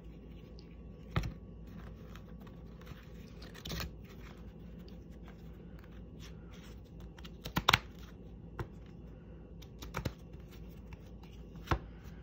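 Scattered clicks, taps and rustling of small objects being handled on a table as a crystal angel card is pulled, with a quick cluster of sharp clicks about two-thirds of the way through.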